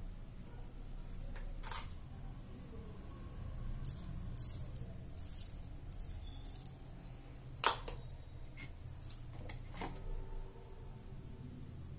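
Scattered light clicks and rustles of kitchen things being handled, the sharpest click about two thirds of the way through, over a low steady hum.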